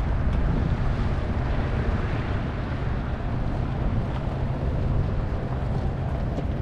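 Wind buffeting the microphone as it moves through the open lot: a steady rushing rumble, heaviest at the low end.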